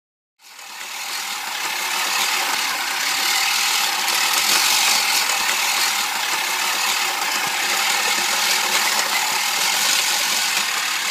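Manual push reel mower rolling over grass, its spinning reel blades whirring against the bedknife as they snip the grass. The steady whirr starts about half a second in and builds over the first couple of seconds.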